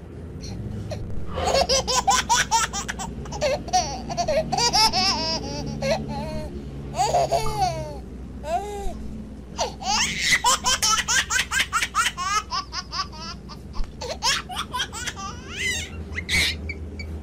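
High-pitched giggling laughter in quick runs of rapid pulses, with brief pauses between runs.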